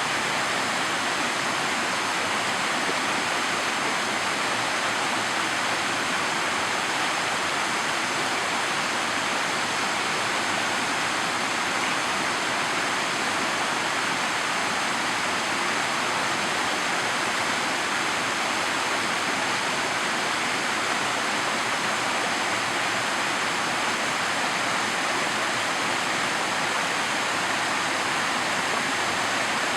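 Yukiwa Falls, a slide waterfall, rushing steadily as water streams down its long granite slab.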